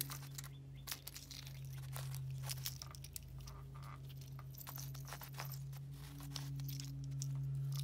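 A plastic Qiyi Ivy cube keychain puzzle being turned in the hands: irregular clicks and scrapes from its pieces, over a steady low hum.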